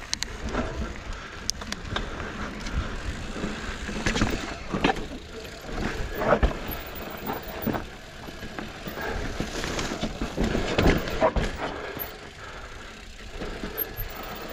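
Mountain bike (Ibis Ripmo AF) riding over rocky dirt singletrack: tyre noise on dirt and rock with repeated sharp knocks and rattles from the bike, over a low wind rumble on the microphone.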